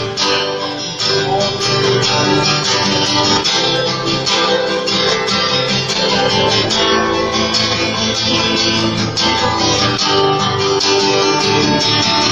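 Live worship music: an instrumental passage between sung lines, with strummed guitar to the fore.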